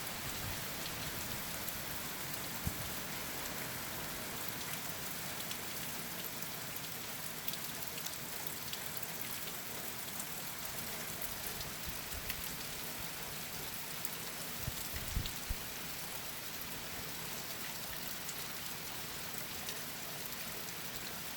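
Heavy rain falling steadily in a coastal storm, a dense even hiss, with a few brief low thumps now and then.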